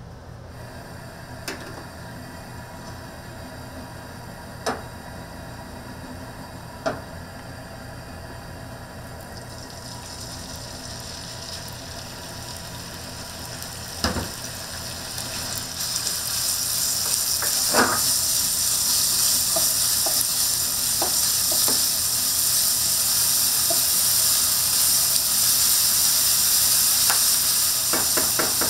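Food frying in a hot pan. The sizzle builds from quiet to loud about halfway through. Now and then a utensil clicks and knocks against the pan.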